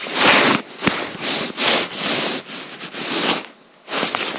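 Scratchy rubbing and rustling in about six short bouts: hand and clothing handling noise while a crappie is unhooked.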